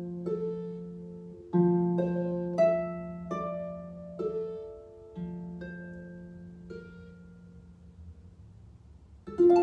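Harp played slowly in a meditative piece: single plucked notes and chords over a low bass note, each left to ring and fade away. A fresh chord is plucked near the end after a quiet stretch.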